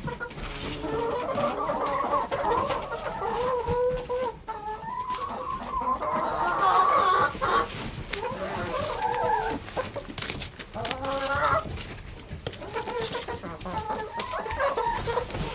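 A flock of hens clucking and calling, a steady run of short overlapping calls, with scattered sharp taps as they peck at a hanging cabbage head.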